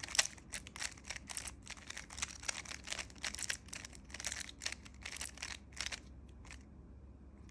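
Rubik's Cube being turned quickly by hand through a long scramble, its plastic layers clicking several times a second in an uneven run. The clicking stops about six seconds in.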